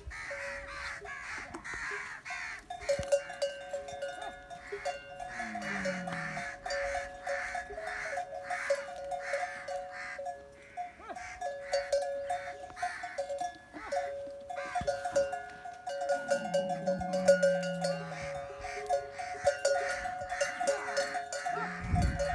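Bells on grazing camels clanking and ringing steadily, with a pulsing hiss above them. A few times a low call falls in pitch over about a second.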